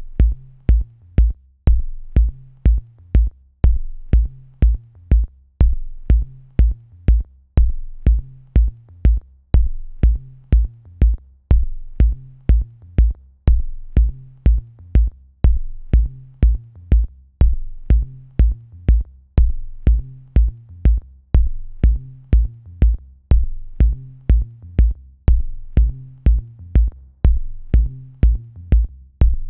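Background music with a steady beat: a heavy kick and a sharp click on each beat, about three beats every two seconds, over a low bass line.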